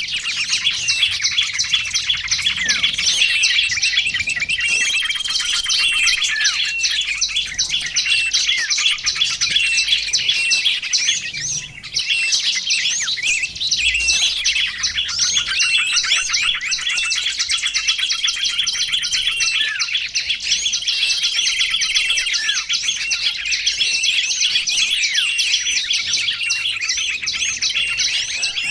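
Small songbirds chirping rapidly and without pause, many high, quick calls packed closely together.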